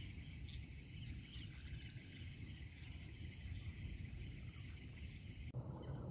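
Night chorus of crickets trilling steadily and high-pitched over a low rumble. The chorus stops abruptly about five and a half seconds in.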